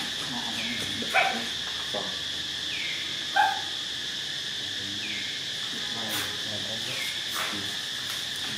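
Steady, high-pitched drone of insects, with a few short sharp calls over it, the loudest about a second in and again about three and a half seconds in, and some brief falling chirps between them.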